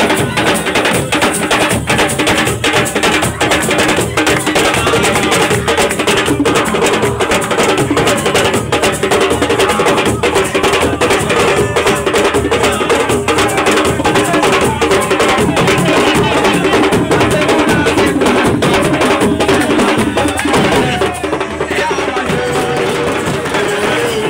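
Music driven by fast, dense percussion: drums and sharp wood-block-like strikes, with wavering pitched voices or melody over them. About three-quarters of the way through, the sound briefly thins and loses its top end, then fills out again.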